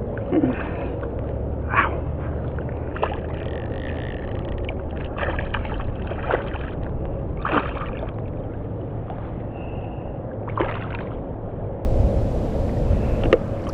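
Water splashing and sloshing in short, irregular bursts as a small speckled trout thrashes at the surface beside a kayak, over a low steady hum. Near the end, wind noise on the microphone comes in.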